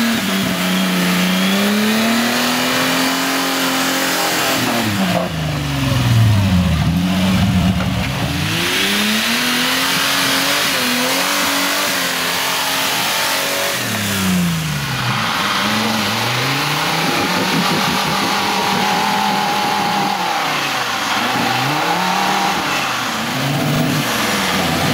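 Modified off-road 4x4 trucks' engines revving hard, the pitch rising and falling again and again as the drivers work the throttle to climb a steep sandy slope with the wheels spinning in loose sand.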